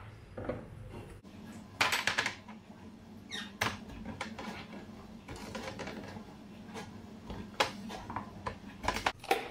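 Glass storage jars knocking and clinking as they are handled, wiped with a cloth and set down on the counter, with scraping in between and a quick cluster of clicks about two seconds in. A faint steady hum runs underneath.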